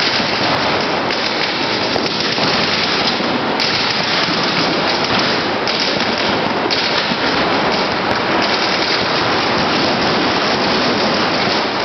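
Several paintball markers firing rapidly at once, the shots overlapping into a loud, steady crackle.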